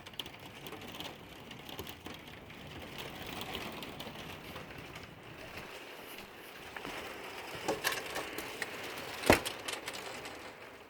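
Heavy rain, with dense drops ticking rapidly on a hard surface. A single sharp knock stands out about nine seconds in.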